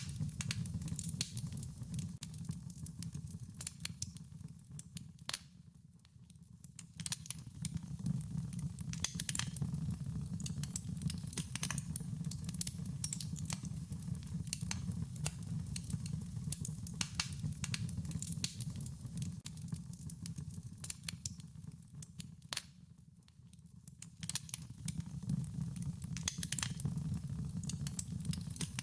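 Wood fire crackling, with many irregular snaps and pops over a steady low rumble from the flames. It goes softer briefly twice, about six seconds in and again near the middle of the second half.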